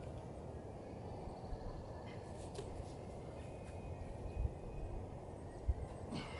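Outdoor ambience: a steady low rumble with faint bird calls, and two soft low thumps in the second half.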